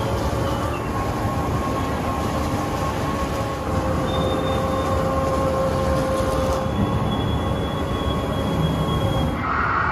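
Steady mechanical rumble with several long, steady squeal-like tones over it, each lasting a second or more, like wheels running on a rail.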